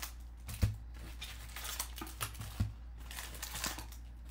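Sealed Bowman baseball card packs crinkling and rustling as a stack is lifted out of a cardboard box, with two soft knocks, about half a second and two and a half seconds in.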